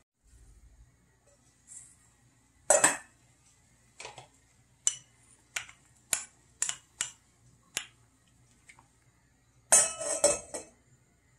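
Stainless steel pot lid clanks as it is lifted off, then a wooden spoon knocks about seven times against a small bowl and the pot while scraping ingredients into the soup. A loud clatter of the lid going back on comes near the end.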